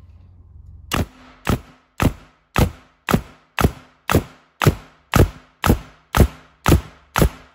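Metabo 15-gauge angled pneumatic finish nailer firing in bump fire mode, driving 2.5-inch nails into a block of solid wood. Thirteen sharp shots come at a steady two or so a second, starting about a second in.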